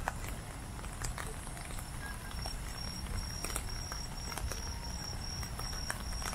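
Goldfish fireworks (water fireworks) burning on the river's surface, giving off irregular sharp crackles and pops over a low steady rumble.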